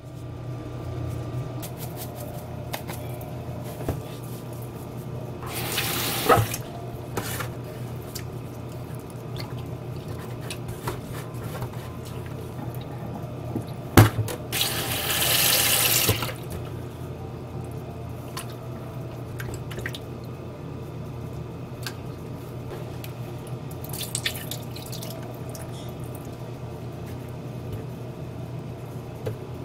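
Kitchen tap running in short spurts into a stainless steel sink and bowl as raw oysters are rinsed, the longest run about two seconds halfway through, with a few sharp clinks of the metal bowl against the sink. A steady low hum runs underneath.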